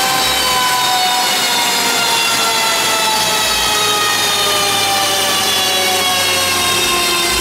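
Seat Cupra 290 running on a chassis dyno: a loud, steady whine with many overtones, its pitch falling slowly the whole time as the engine and rollers wind down.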